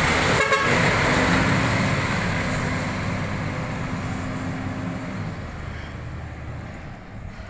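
Side-loader recycling truck's diesel engine pulling away and fading steadily as it drives off, with a short clatter about half a second in.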